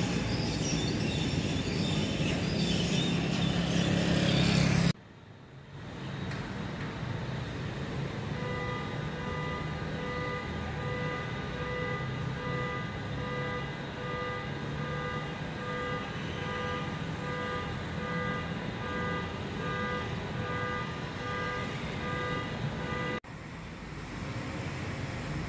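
Road traffic noise from cars passing for about five seconds, cutting off abruptly. It is followed by a quieter steady hum, with several faint held tones pulsing together over most of the rest.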